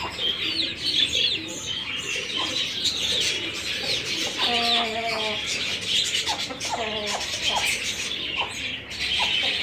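Chickens and small caged birds: a steady chatter of short high chirps, with a few lower, drawn-out falling chicken calls about four and a half and six and a half seconds in.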